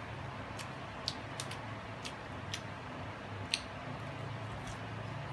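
A few sharp, separate crackles as a crisp bánh mì crust and its paper wrapper are handled and bitten into, over a steady low hum.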